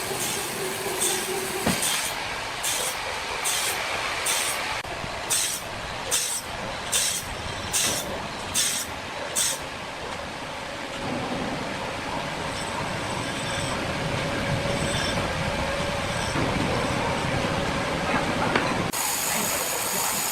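Sawmill machinery running. For about the first ten seconds a hissing stroke repeats a little faster than once a second, then it gives way to steady running noise with a low hum.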